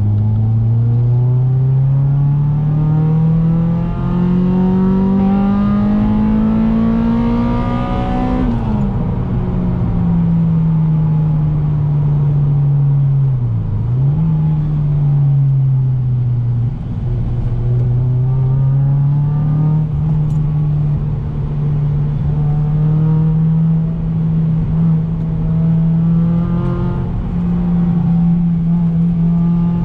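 Honda Civic Type R EP3's 2.0-litre four-cylinder engine breathing through a Toyosports 4-2-1 decat manifold and Spoon N1 back box. It pulls up through the revs for about eight seconds, drops at a gear change, dips and recovers once more a few seconds later, then settles to a steady cruise.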